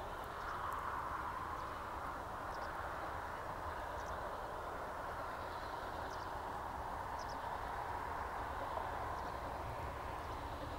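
A distant narrow-gauge steam locomotive working a train, heard as a steady rushing exhaust with a low rumble, with a few short bird chirps.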